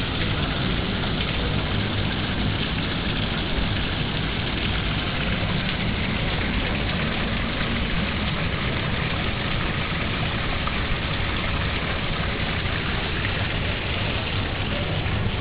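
Water from a solar pump's hose outlet splashing steadily onto paving, with a low rumble underneath.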